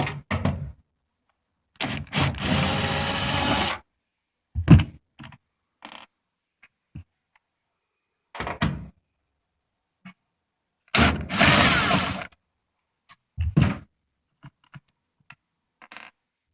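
Washing-machine parts being handled and pulled out during disassembly: two scraping slides, one of about two seconds early on and one of about a second in the second half, with several thunks and knocks between and a few small clicks near the end.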